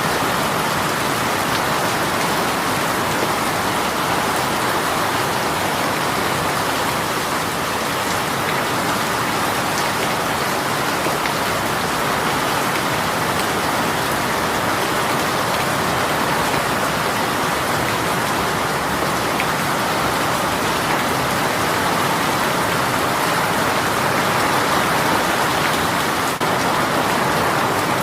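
Heavy rain shower pouring steadily, a dense even hiss of rain falling on surfaces.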